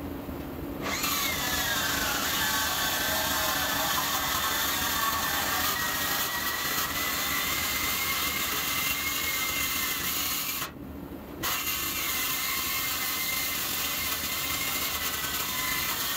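Milwaukee M18 FUEL cordless circular saw cutting through a steel truck frame rail: a steady high whine from the blade in the steel, starting about a second in, with a short break about ten seconds in.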